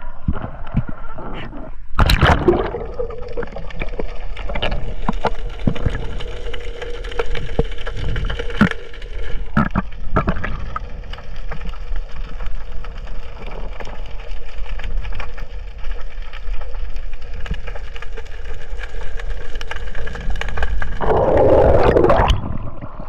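An underwater camera on a night dive: it goes under with a splash about two seconds in, then picks up muffled underwater sound, a steady hum with scattered clicks and knocks. A louder rush of noise comes near the end.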